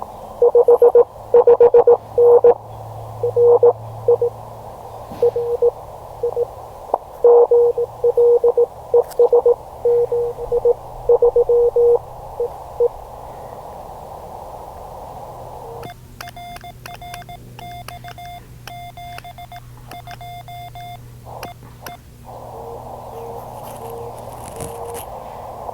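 Morse code (CW) on a ham radio transceiver. A strong keyed tone spells out characters over band hiss until about halfway through. After a short gap, a higher-pitched keyed tone comes in while the hiss drops out, and near the end a fainter keyed signal sounds in the hiss.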